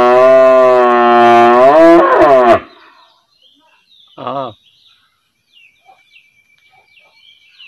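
A cow mooing: one long, loud moo that ends about two and a half seconds in, followed about four seconds in by a brief, much quieter call.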